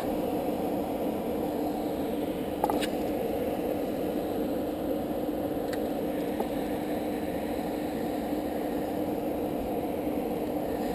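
Steady rushing noise of water pouring through a river weir, with a faint steady hum under it and a single sharp click about two and a half seconds in.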